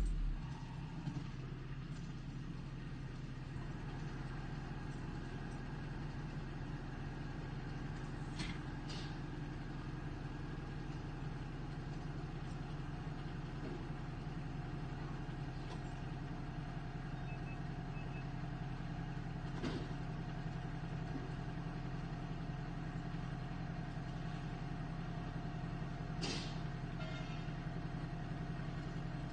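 Backhoe engine running steadily, with a few sharp metallic knocks scattered through.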